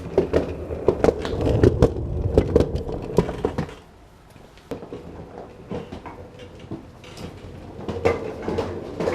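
Irregular clicks and knocks, with a low rumble under them for the first three seconds or so, then fainter scattered clicks.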